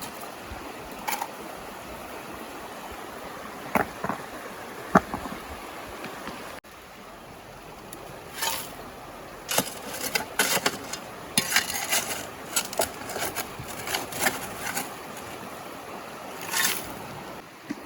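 A shovel scraping and clinking in wet gravel and stones between river boulders, in irregular strokes that come thick and fast in the second half, over the steady rush of river water.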